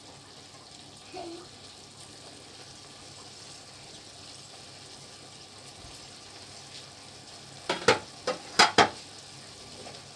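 Turkey pieces in a still-wet pepper masala sizzling softly in a nonstick frying pan, with a wooden spatula stirring them. About eight seconds in, the spatula knocks and scrapes against the pan about five times in quick succession.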